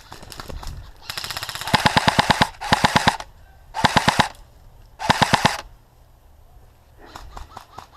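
Airsoft M4 rifle firing full-auto in four quick bursts, the first and longest starting about a second in. Fainter, more distant shots are heard at the start and near the end.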